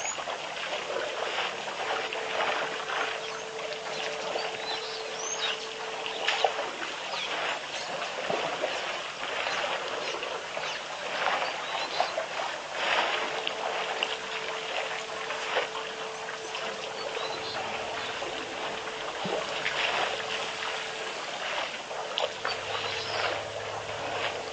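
Water splashing and trickling without a break, full of short irregular crackles, with a few faint bird chirps and a thin steady tone that stops and restarts.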